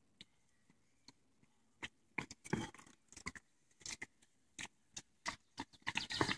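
Runners' shoes slapping on brick paving: short sharp footfalls, only a few at first, then coming thicker and louder from about two seconds in as several runners come up and pass close by.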